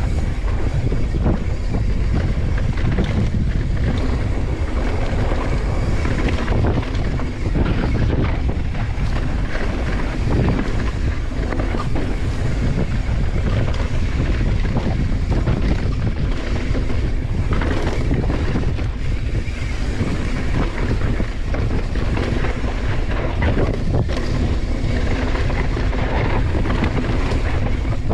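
Wind rushing over an action camera's microphone as a mountain bike descends a dirt downhill trail at speed, with constant rattling and knocking from the bike over rough ground.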